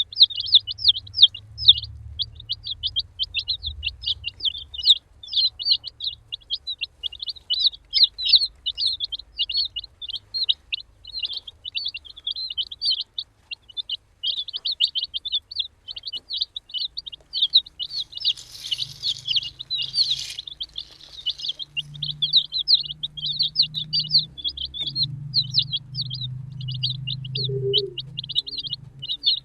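A group of baby chicks peeping without pause, many short high chirps overlapping. A brief scratchy rustle comes a little past halfway.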